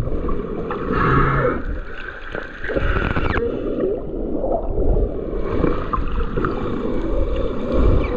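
Water gurgling and sloshing over a steady low rumble.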